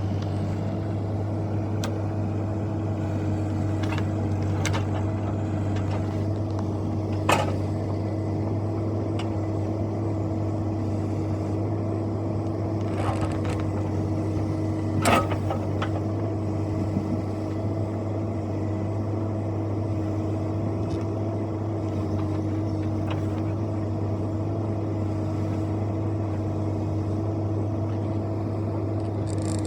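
Bobcat E26 mini excavator's diesel engine running steadily at a constant speed, with a few sharp knocks over it, the loudest about halfway through.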